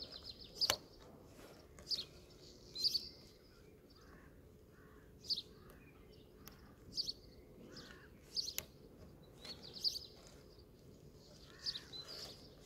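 Small birds chirping, short high calls every second or so. Two sharp clicks, one near the start and one past the middle, come from plastic electrical fittings being handled.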